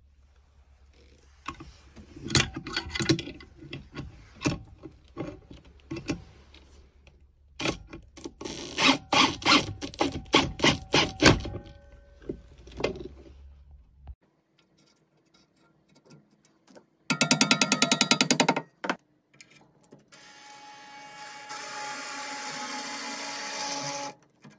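Tools driving fittings into wood. First comes a run of sharp metal clicks and knocks as a steel eye screw is turned in with a spanner and a drill. After a break there is a short burst of rapid hammering strokes, then a power driver running steadily and growing louder as it drives a screw into a plastic wall plug.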